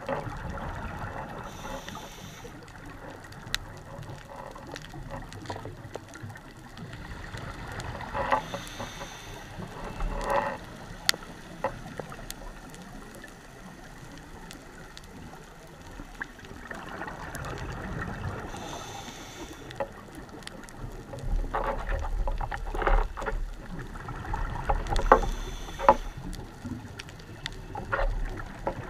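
Underwater sound of a scuba diver's regulator breathing: slow cycles of hissing inhalation and bubbling exhalation, over a constant faint clicking and crackling.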